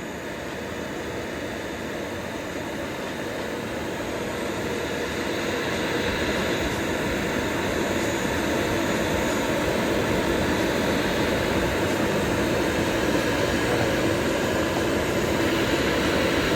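CNC router spindle running as a 45° V-bit carves lettering into plywood: a steady machine drone and cutting noise, growing louder over the first several seconds and then holding.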